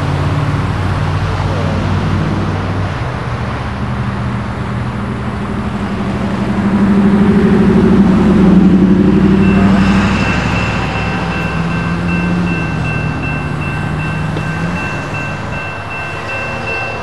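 Road traffic driving over a railroad grade crossing, loudest about halfway through, then the crossing's warning bell starts ringing steadily about two-thirds of the way in as the gates begin to come down for an approaching train.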